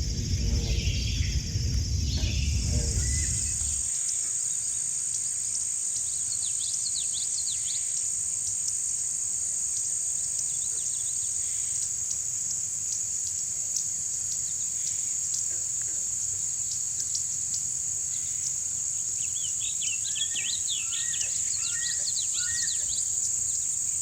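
Outdoor nature ambience: a steady high-pitched insect drone, with scattered short chirping calls that bunch together near the end. A low rumbling noise fills the first few seconds and stops about four seconds in.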